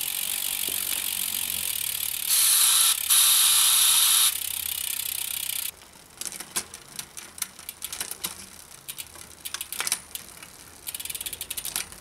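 Bicycle drivetrain on a work stand, chain running over the cassette and through a Shimano XTR M950 rear derailleur while the gears are shifted to check the adjustment, with the rear hub's freewheel ratcheting. A dense rattle of chain and ratchet is loudest between about two and four seconds in and stops suddenly a little before halfway. Scattered separate clicks follow, then denser clicking again near the end.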